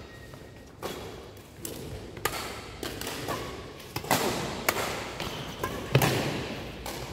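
Badminton rackets smacking a shuttlecock back and forth in a doubles rally, mixed with thuds of players' footwork on the court floor. The sharp hits come about once or twice a second and echo in the large hall, the loudest about four and six seconds in.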